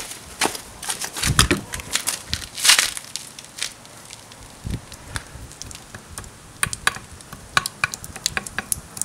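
Scattered clicks and knocks of a grease-caked steel steering knuckle and control arm being turned over and shifted by hand on concrete and gritty ground, the loudest about two and a half seconds in.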